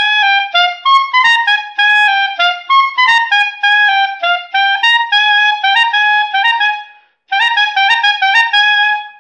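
Clarinet playing a lively melodic run of many short, separate notes in its upper register, with a brief pause for breath about seven seconds in before the phrase carries on.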